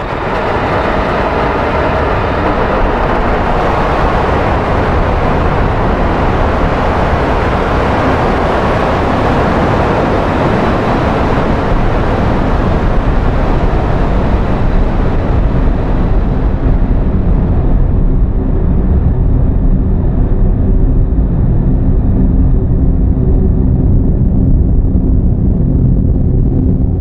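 Harsh noise wall: a loud, unbroken wall of static-like noise. Its hiss slowly dulls over the first 18 seconds or so, leaving a low rumble with a few faint steady tones underneath.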